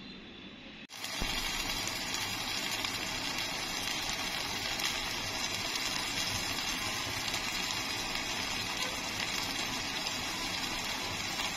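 Tomato purée sizzling and bubbling in a hot cooking pot, a steady hiss that starts about a second in.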